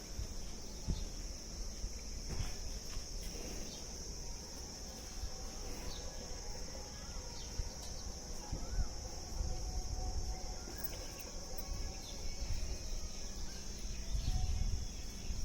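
Insects, crickets or cicadas, keeping up a steady high-pitched drone, over a low, uneven rumble of outdoor noise on the microphone.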